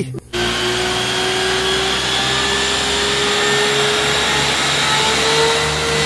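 Water tanker truck spraying a jet from its roof water cannon: a steady rushing hiss over the hum of the pump, with a whine that slowly rises in pitch.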